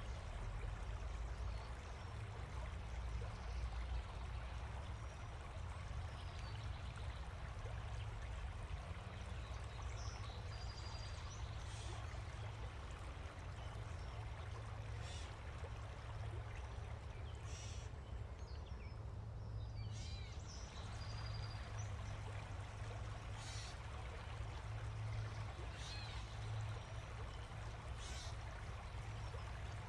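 Steady outdoor ambience: an even wash of noise over a low rumble, with a few short high chirps scattered through.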